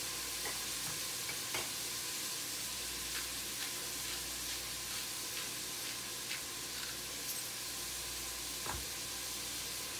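Chopped onions, bell pepper and celery sizzling steadily in hot bacon fat in a stainless steel pot, with a few faint clicks.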